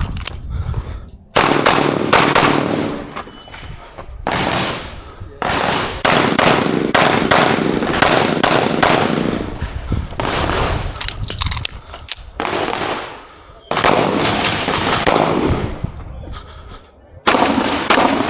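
Pistol shots fired in quick strings during an IPSC course of fire, with short pauses between strings as the shooter moves or reloads.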